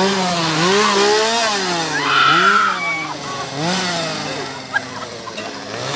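Chainsaw revved again and again, its engine pitch swinging up and down about five times. A brief high-pitched cry comes about two seconds in.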